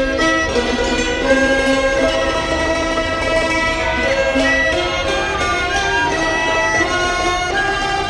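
Thai classical ensemble playing a traditional song: two-string bowed Thai fiddles (saw) carry a held, gliding melody over the struck strings of khim hammered dulcimers.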